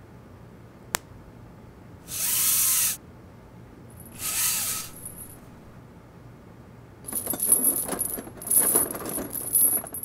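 Foley sound effects for handling clothing and a leather clutch: a single sharp snap about a second in, two short hissing swishes around two and four seconds, then a zip being pulled in rattly, scratchy strokes over the last three seconds.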